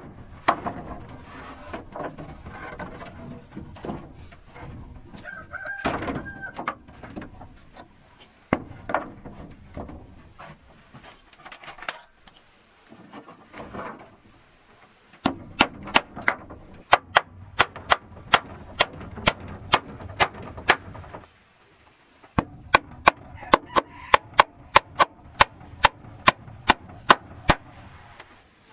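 Hammer strikes on wood in two long, quick runs of about three blows a second in the second half, with chickens clucking and calling.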